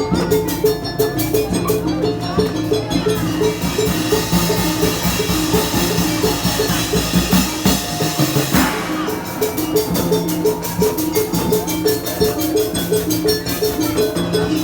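Obrog street-music ensemble playing a steady, fast-driving rhythm on drums and percussion, with a repeating melodic figure over it.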